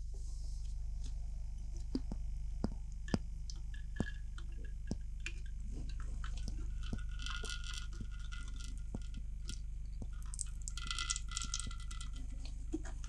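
Water pouring over an ebony knife handle and dripping into a stainless steel sink: scattered sharp drips and plinks in the first half, then two short spells of trickling, over a steady low hum.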